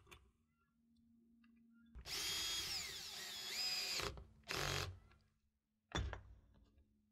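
Cordless drill/driver running for about two seconds as it drives the bolt down through an aluminium U-foot into a solar roof standoff, its motor whine dipping in pitch under load and coming back up, then a short second burst. A sharp knock follows about six seconds in.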